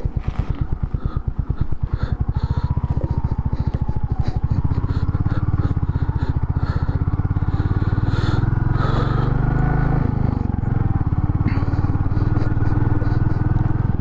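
Royal Enfield Meteor 350's single-cylinder engine running under way, a steady rapid beat of exhaust pulses. About four seconds in the engine pulls harder and the sound grows fuller as the bike picks up speed.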